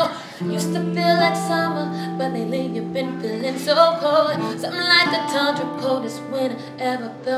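A woman singing over an acoustic guitar playing ringing chords, with the chord changing about four seconds in and again near five.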